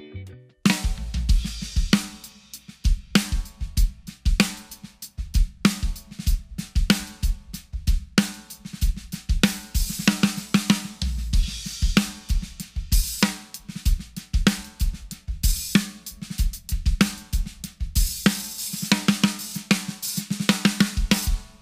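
Drum kit groove built around a 14x6 Sonor AQ2 maple snare with a coated Remo Ambassador head in a medium open tuning, with ringing snare backbeats over bass drum and hi-hat. Cymbals crash at several points, most of all near the end.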